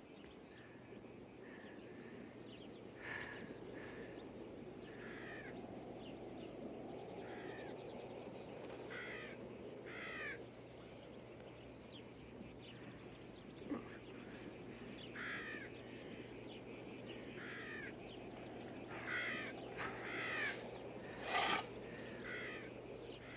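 Harsh bird calls like crows cawing, short falling calls coming one or two at a time every second or two, over a low scraping haze from a shovel digging in dry earth, with an occasional knock.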